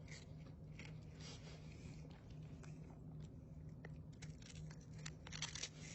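Faint, irregular soft clicks and crunches over a low steady hum.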